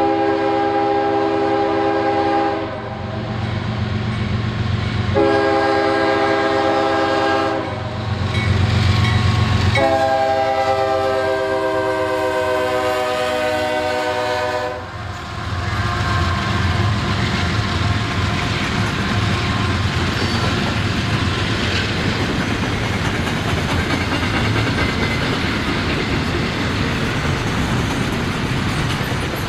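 Diesel locomotive horn sounding three long blasts, the last one falling in pitch as the locomotive passes. The engine's low rumble runs underneath, followed by the steady rumble and clickety-clack of the train rolling by on the rails.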